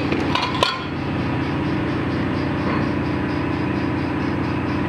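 Steady low drone of a ship's engine-room machinery, with one short knock about half a second in.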